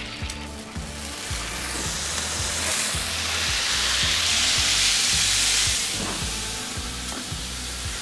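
Eggs frying on a hot propane flat-top griddle, a steady sizzle that swells louder around the middle and eases off about six seconds in.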